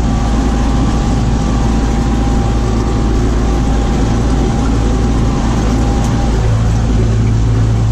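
Tractor engine running steadily under load, driving a stalk mulcher that is shredding sunflower stalks; a faint steady whine sits above the drone.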